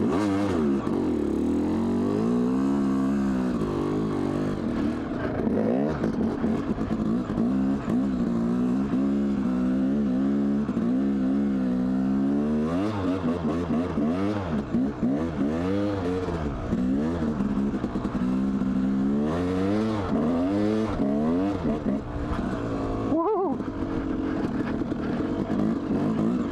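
2002 Yamaha YZ250's single-cylinder two-stroke engine being ridden hard, its revs rising and falling again and again as the throttle is worked for grip on snow with a nearly bald rear tire. About three-quarters of the way through, the engine note drops out for a moment, then picks up again.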